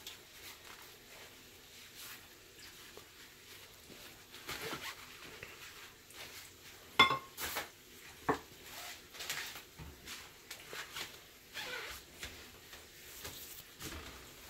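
Kitchen handling noises: scattered light knocks and rustles, with a sharp, briefly ringing clink about seven seconds in and another knock just after.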